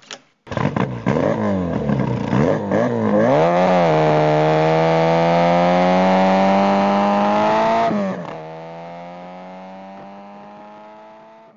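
Car engine revved a few times, then accelerating with a steadily rising pitch. About eight seconds in, the pitch drops sharply like a gear change, and it climbs again as the sound fades away.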